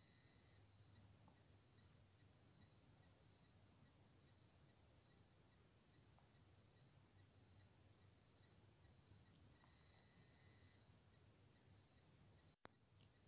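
Near silence: faint room tone with a steady high-pitched whine and a fainter tone pulsing in an even rhythm beneath it.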